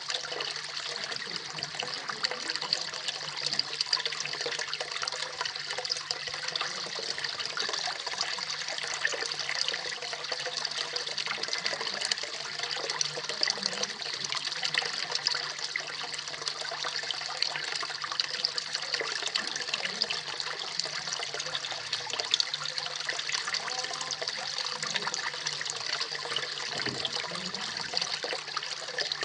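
Small waterfall splashing steadily into a koi pond: a constant bright pattering rush of falling water, with a faint steady low hum underneath.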